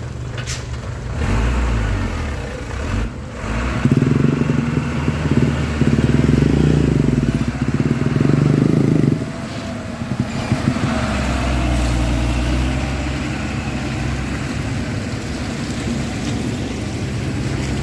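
Vehicle engine running steadily. It is much louder for about five seconds in the middle, then settles back to a steadier, quieter run.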